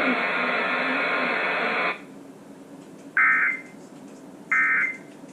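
Emergency Alert System broadcast over FM radio: a steady hiss cuts off sharply about two seconds in. Then come two short buzzing bursts of the end-of-message data tones, about a second and a half apart, the sign that the alert has finished.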